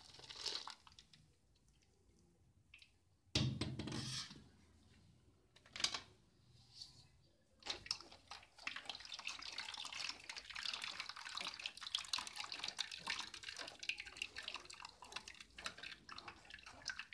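Blended pomegranate pulp poured from a blender jug into a steel mesh strainer, with a few knocks, then pressed and stirred through the mesh with a spatula. From about halfway in, a steady wet crackle of pulp being worked as the juice drips into the bowl below.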